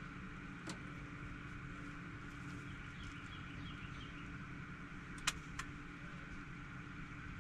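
A faint, steady engine hum. Two sharp clicks come near the end, and a small bird gives a quick run of short falling chirps midway.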